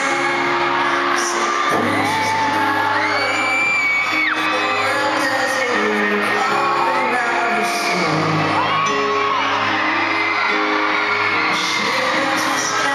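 Live pop ballad sung by a male voice over a grand piano, with high-pitched whoops and screams from the audience mixed in.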